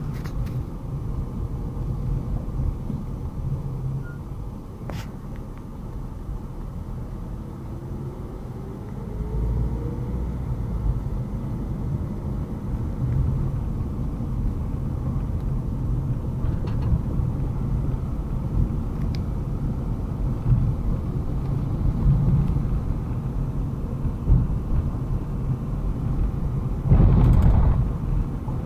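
Car driving on a city street, heard from inside the cabin: a steady low rumble of engine and tyres on the road, with a brief louder rush near the end.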